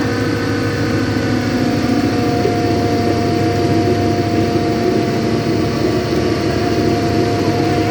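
A boat's engine running steadily, a constant low rumble with a few held tones over it.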